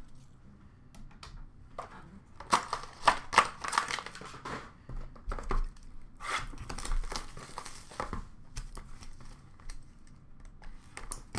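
Plastic trading-card pack wrappers crinkling as hands handle them in a bin of opened packaging, in two main stretches of rustling with light clicks and taps between.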